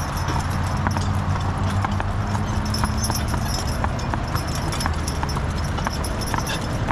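Belgian draft horse team walking on pavement: a continuous clip-clop of hooves, with a low steady rumble underneath.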